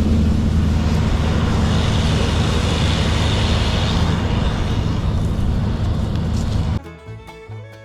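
New Holland CX5090 combine harvester running steadily with a low, even engine drone, cut off abruptly near the end by banjo-led bluegrass music.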